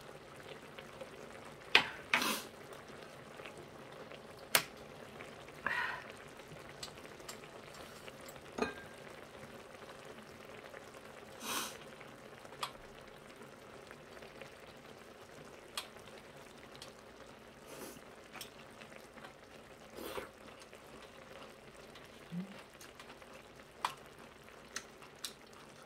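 Braised kimchi stew with pork bubbling softly in its hot tray, a steady faint sizzle, broken every few seconds by sharp clicks and clinks of chopsticks and a wooden spoon against the tray and bowls.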